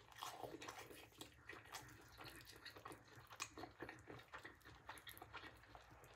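Faint, close-up chewing of a crispy cheese-crusted mulita: soft, irregular mouth clicks and smacks.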